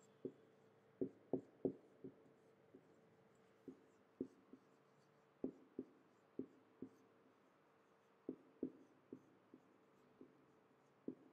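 Marker pen writing on a whiteboard: faint, irregular ticks and short strokes as the tip meets the board.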